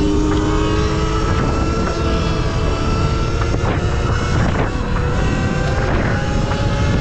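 Sur Ron X electric dirt bike's motor whining under way, a steady multi-tone whine that climbs a little in pitch over the first couple of seconds as it picks up speed, then holds, over low wind rush on the microphone.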